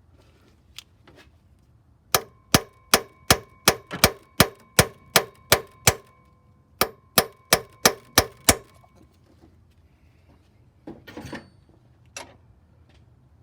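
Hammer striking a steel chisel set against a seized cylinder-head bolt on a Chevy 4.2 inline-six: about eleven sharp, ringing metal blows at roughly three a second, a short pause, then six more. Two softer knocks follow near the end.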